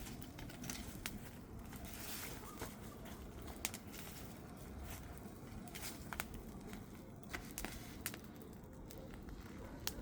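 Bonfire burning, with scattered sharp crackles and pops of burning wood at irregular intervals over a low steady rumble.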